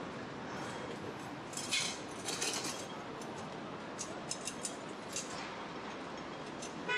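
Busy city street ambience: a steady background hum with scattered short, sharp clicks and clinks.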